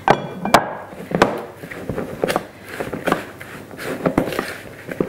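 Kitchen bowls and utensils knocking and scraping in a string of short, sharp clicks, two loud ones at the start and then irregular ones about two or three a second, as breadcrumbs are added to grated vegetables in a bowl.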